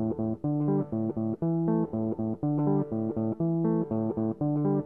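Background music: a plucked guitar and bass riff of short notes in quick, even succession.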